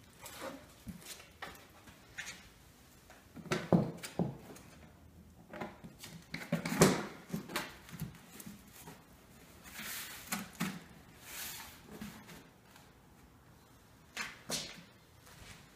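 Handling noise from a cover being set onto a homemade pad dispenser: scattered knocks and rustles, the loudest a pair of knocks about four seconds in and a sharper one about seven seconds in.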